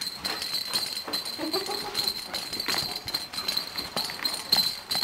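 A large inflatable toy rattle being shaken by a baby, the pieces inside clattering in quick, irregular rattles.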